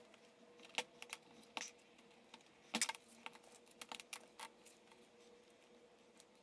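Scattered light clicks and taps of knife handle scales and pins being fitted onto a blade's tang and set down on a steel workbench during glue-up, the sharpest about three seconds in. A faint steady hum runs underneath.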